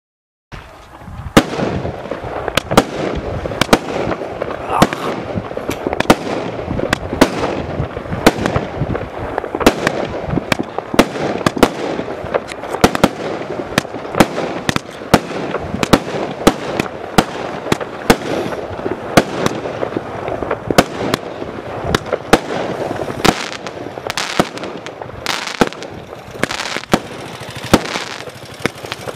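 Primed Pyrotechnics Casino 1.3G firework cake firing a rapid barrage, starting about half a second in. Sharp shots and bangs come several a second over a continuous crackle.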